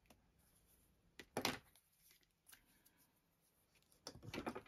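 Paper handling noises on a craft desk: a short rustling scrape about a second and a half in, and a longer rustle near the end, as a paper cut-out is pressed down onto a journal page.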